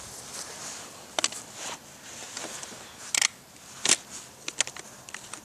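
9mm cartridges being pressed one by one into a stiff-sprung 30-round Beretta magazine: a string of sharp clicks, about six, spaced irregularly half a second to a second apart.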